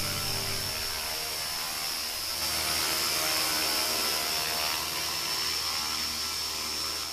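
JR Forza 450 radio-controlled helicopter hovering: a steady high whine from its motor and spinning rotors.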